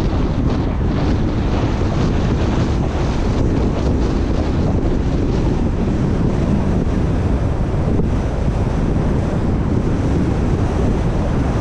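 Steady wind rushing and buffeting over the microphone of a camera held outside a moving car, with the car's road noise underneath.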